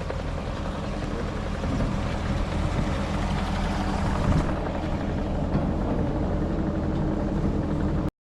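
A motor engine running steadily, close by, with a low even throb; it cuts off suddenly near the end.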